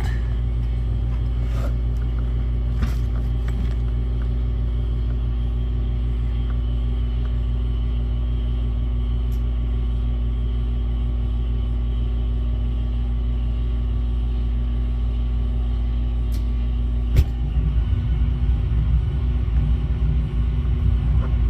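Gas furnace's draft inducer motor humming steadily, with a few light clicks early on. About 17 seconds in, a sharp click and the burners light with a rougher, louder low rumble: the furnace is firing up on its new pressure switch.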